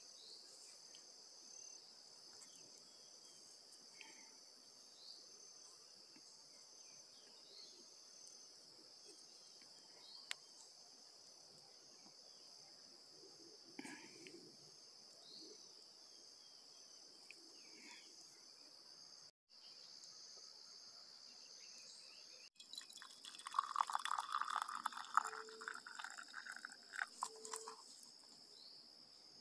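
Insects droning steadily at a high pitch, with faint scattered ticks and crackles from a small wood fire. Near the end come a few seconds of louder rustling and scraping from handling.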